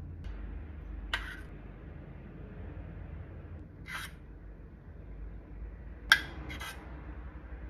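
Metal spoon clinking against a ceramic plate and a small steel saucepan during plating: four short clicks, the sharpest about six seconds in, over a low steady hum.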